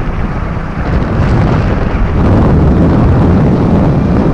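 Wind buffeting the microphone over road and engine noise from a vehicle moving at about 40 km/h, growing louder about two seconds in.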